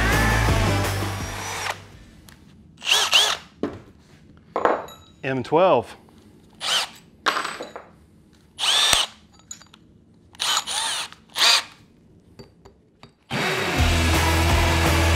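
Milwaukee cordless hammer drills hammer-drilling into a concrete block with a 1/2-inch masonry bit. The M18 Fuel drill stops about two seconds in. A string of short, separate bursts of sound follows. The M12 Fuel hammer drill starts drilling about thirteen seconds in.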